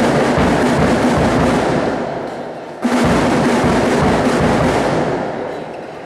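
Loud drumming with music that starts suddenly, fades, and starts again sharply about three seconds in.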